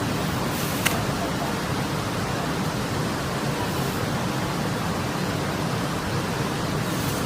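Steady rushing noise of water, even and unbroken, with one short sharp click about a second in.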